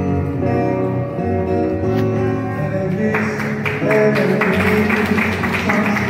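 Live music: a woman singing into a microphone over an acoustic guitar, which is strummed more densely from about three seconds in.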